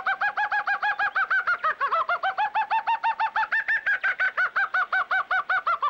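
A man imitating a bird call through a cupped hand at his mouth: a fast, even string of short chirps, each rising and falling, about eight a second.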